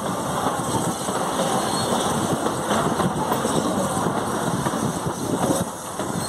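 Steam-hauled passenger train running along the track, heard from an open coach window: a steady rumble and rattle of the wooden coaches and wheels, with wind buffeting the microphone.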